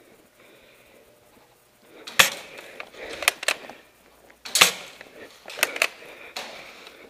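Spring-powered airsoft guns firing: a scatter of sharp snaps and clacks, the two loudest about two and four and a half seconds in.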